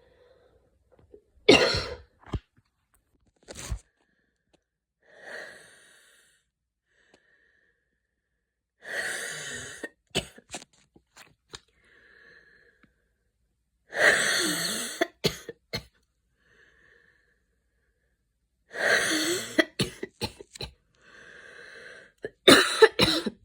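A woman coughing in a fit brought on by exercise-induced asthma after running in cold air. Sharp single coughs and runs of several coughs come every few seconds, with fainter wheezy breaths drawn in between.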